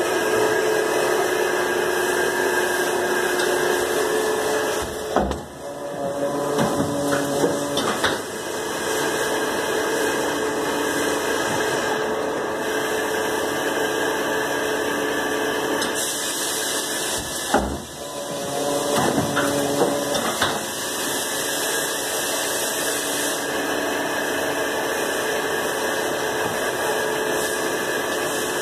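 Wohlenberg paper guillotine running with a steady machine hum, broken twice by clusters of heavy knocks and clunks as it goes through a cut, about five seconds in and again about seventeen seconds in.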